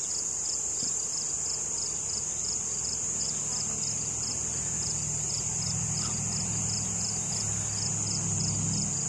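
Steady high-pitched trilling of insects, with a low honeybee hum that grows stronger about halfway through as bees swirl around the open hive during frame handling.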